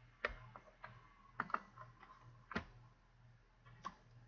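Faint, scattered clicks of a computer mouse and keyboard: about six short, sharp clicks at uneven intervals, over a faint low hum.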